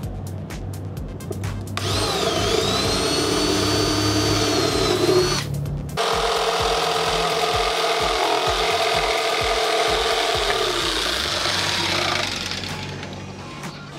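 Cordless drill boring a pilot hole through plywood for a few seconds, then, after a brief pause, an electric jigsaw cutting a square opening in the plywood for about six seconds, stopping near the end. Background music with a steady beat underneath.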